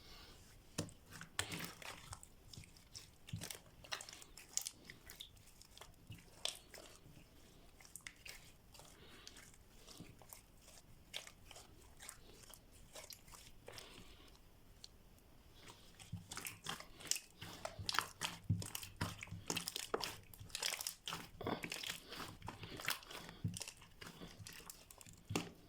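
Slime being squeezed and kneaded by hand, giving irregular crackling and clicking pops that come thick and fast in the second half.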